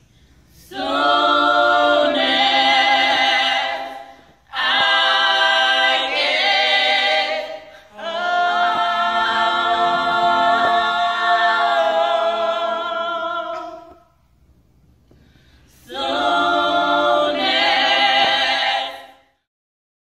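A small group of women's voices singing a cappella, with no instruments. They sing four phrases with short breaks between them; the third phrase is the longest, and the singing stops shortly before the end.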